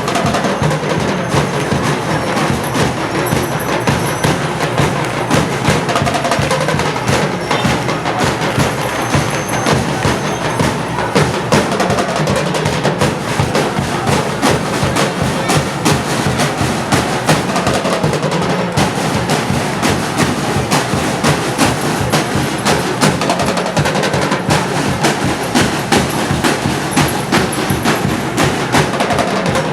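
A percussion ensemble drumming a dense, steady beat of rapid strikes.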